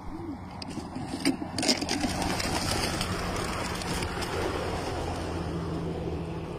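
Knocks from pigeon crates being opened, then a flock of homing pigeons taking off, a dense rush of wing flapping, over a steady low hum.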